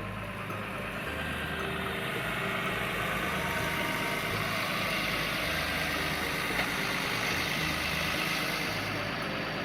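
An engine running steadily with a low throb, under a rushing hiss that builds over several seconds and eases off near the end.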